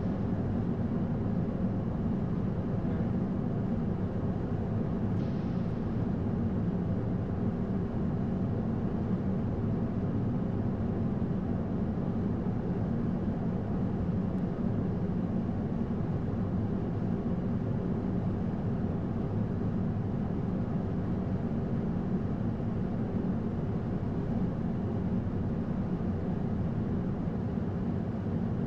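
Flight-deck noise of an Airbus A220-100 on final approach: a steady low rushing drone of airflow and engine sound, with no change in level.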